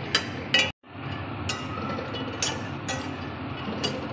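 Flat spatula stirring fox nuts (makhana) roasting in a stainless steel kadhai: scattered scrapes and clinks of the spatula against the steel pan over a steady hiss. The sound cuts out briefly about a second in.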